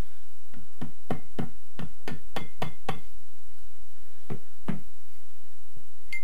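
Rubber mallet tapping the cylinder head of a Honda VFR800Fi V4 engine to break it loose from the block where it is still stuck on one side. It makes a quick run of about nine dull knocks, about three a second, then two more after a short pause.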